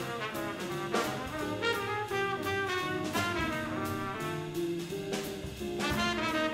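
Small jazz band playing: trumpet leading a melodic line of changing notes over archtop guitar, plucked double bass and drums with steady cymbal strokes.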